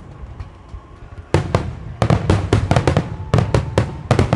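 Star mine fireworks barrage: after a short lull of fading echo, a rapid string of sharp bangs from bursting aerial shells starts about a second in, several per second.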